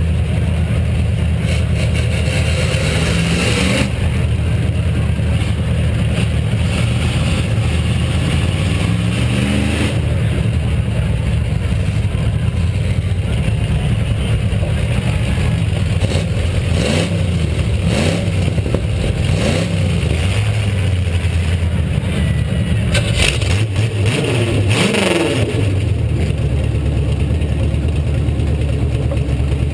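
V8 demolition derby car engines running loud and steady, revved up and down again and again, with a cluster of overlapping revs about two-thirds of the way through.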